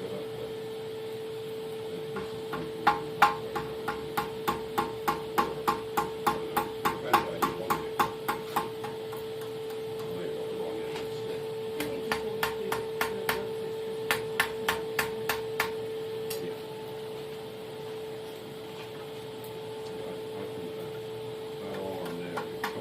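Hand hammer striking hot steel on an anvil while a steel striker for flint and steel is forged and bent into shape. The blows come in runs at about three a second, with a pause between runs, over a steady hum.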